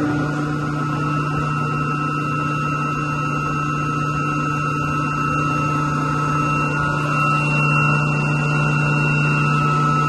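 A 60 hp electric motor drives a chilled water pump through a flexible coupling, running steadily at full speed with a low hum and a high whine over it. It is freshly realigned, with a new coupling fitted, and the technician judges it to sound better with less vibration.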